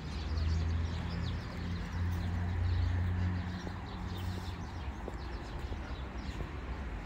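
Many small birds chirping throughout, over a low steady hum that fades about three and a half seconds in.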